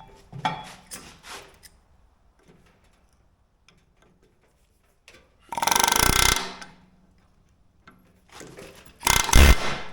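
Pneumatic air hammer fired in two short bursts, about five and nine seconds in, hammering on a steel bushing to drive it out of its bore.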